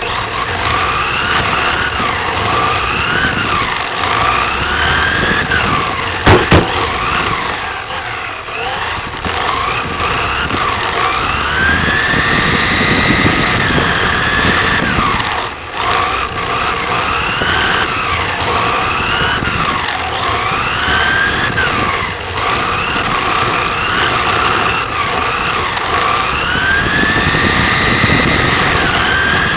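Electric drive of a 1/10-scale RC touring car whining on board, its pitch rising and falling over and over as the throttle is squeezed and released through the corners, over a steady rush of tyres on carpet. Two sharp knocks come about six seconds in.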